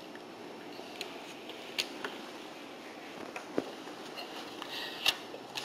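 Quiet room tone with a low steady hum, broken by a few sharp, brief clicks and knocks, the loudest near the end.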